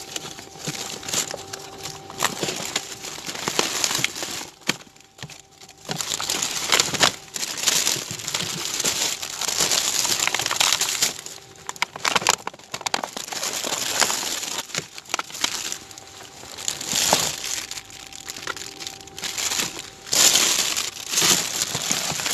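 Paper bags and plastic food packaging rustling and crinkling as discarded groceries are rummaged through and shifted around in a dumpster, in irregular bursts.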